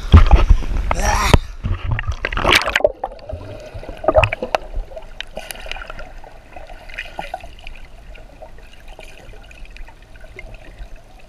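Water splashing right against a GoPro at the sea surface for the first three seconds or so. Then the camera is underwater and the sound turns muffled and much quieter, with faint scattered clicks and crackles.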